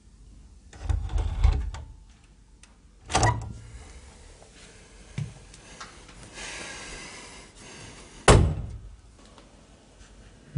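A round metal doorknob rattled and turned with a cluster of knocks, then two sharp door bangs, one about three seconds in and one near the end, with a rasping scrape between them.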